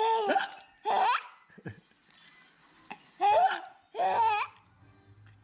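High-pitched hiccuping laugh: four short squealing bursts about a second apart, with a longer pause in the middle. Each burst bends up or down in pitch.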